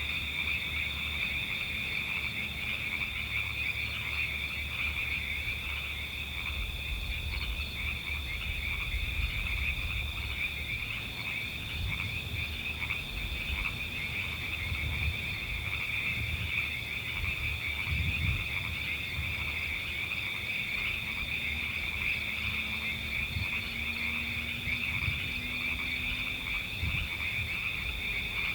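Dense chorus of many frogs calling at once, a steady unbroken high trilling with faint rapid pulsing beneath it, over a low uneven rumble.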